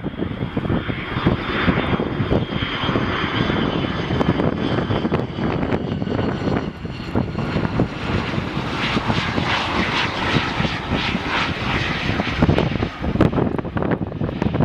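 Antonov An-72's two over-wing D-36 turbofan engines running on landing approach, a steady jet whine and rumble whose upper hiss strengthens from about eight seconds in as the aircraft comes close.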